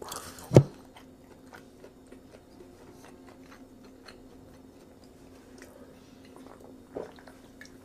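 Faint chewing and mouth noises, then sips and swallows of soda drunk from an aluminium can, under a faint steady room hum. A single brief loud sound comes about half a second in.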